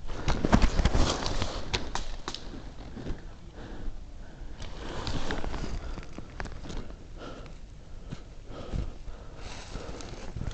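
Rustling of a player's clothing and gear against a shoulder-worn camera, with scattered sharp clicks and knocks; loudest in the first second or two.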